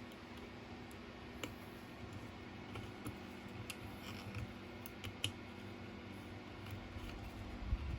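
Small plastic parts of an e-bike half-twist throttle clicking and tapping as the housing is taken apart by hand: a handful of sharp, separate clicks over a steady low hum.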